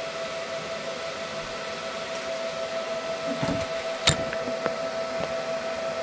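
Welding arc running a bead: a steady electric hum over a hiss, with a sharp click about four seconds in.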